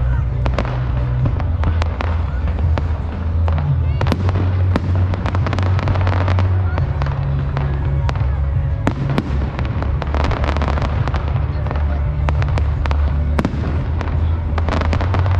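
Fireworks going off in rapid succession: many sharp bangs and crackles. They play over music with a heavy, sustained bass line.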